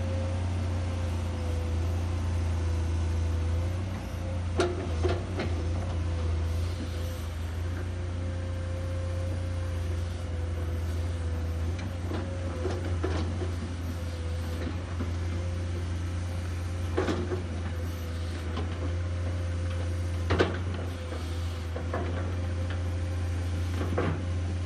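Komatsu PC210 excavator's diesel engine running under load with a steady drone and a steady tone above it, broken by a few sharp knocks as the bucket works the soil, the loudest about twenty seconds in.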